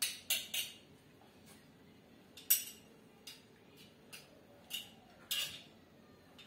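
Metal knife clicking and scraping against a hand-held metal garlic press, scraping the crushed garlic off it: about eight short, irregular metallic clicks and scrapes, the loudest about two and a half seconds in.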